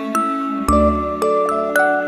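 Gentle background music: a slow melody of single struck notes, each ringing and fading, about five in two seconds, over a low bass note.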